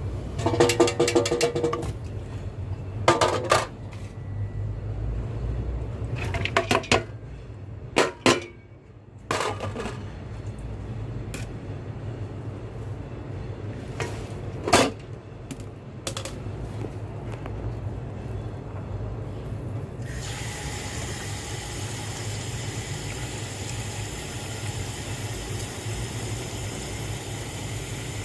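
Kitchen clatter: hard objects clinking and knocking against pots and dishes, some with a short ring, along with liquid filling. About twenty seconds in, a steady even hiss starts suddenly.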